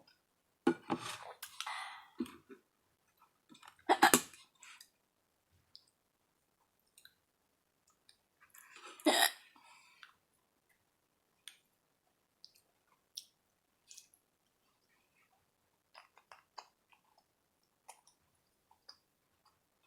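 A person eating: close-miked chewing and small mouth clicks, broken by two loud, sharp hiccups about four and nine seconds in.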